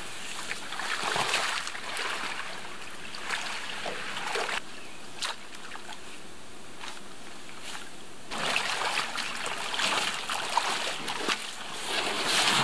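A person wading through shallow lake water in waders while pulling a canoe toward shore, with water splashing and sloshing in bursts. Two short bursts come in the first half and a longer, louder stretch comes in the last few seconds, with a few light knocks between.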